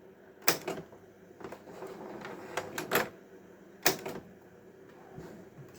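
Slide-changer slider of a Cabin 1000A slide projector being pushed through by hand, giving several sharp clicks and clunks a second or so apart. The slider sticks as if jammed, so it has to be pushed in.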